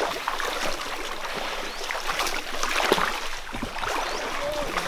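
Water splashing irregularly as people wade through a shallow, rocky stream, over the steady rush of the flowing water.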